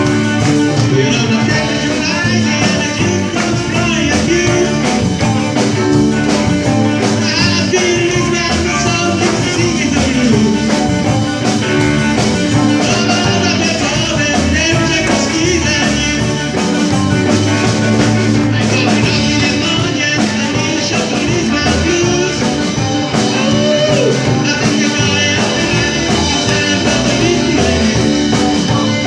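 Live rock band playing: electric guitars, drums and keyboard, with a singing voice.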